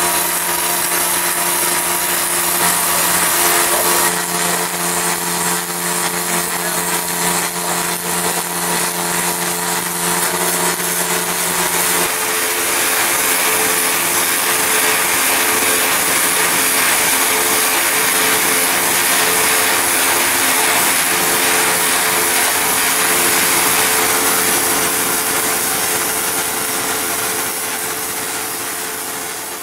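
Automated weld overlay running: a steady arc hiss and crackle over a constant electrical hum from the welding equipment. The low hum drops out about twelve seconds in.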